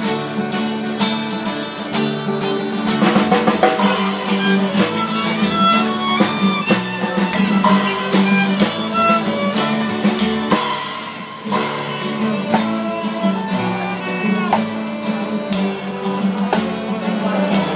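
Small acoustic busking band playing a tune: a bowed violin melody over strummed acoustic guitar and a double bass, with percussion strokes keeping the beat.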